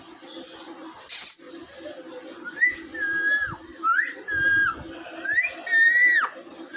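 A green parrot whistles three times, each whistle rising, holding level and then dropping at its end, with a short rasping noise about a second in.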